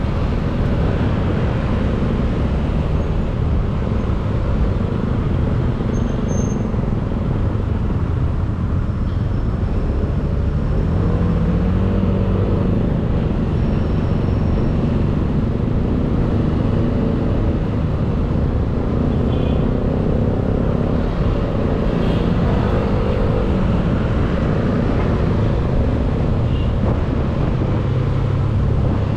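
Motorcycle engine running under way through traffic, heard from the rider's seat, its pitch rising and falling a few times with the throttle over a steady low rumble.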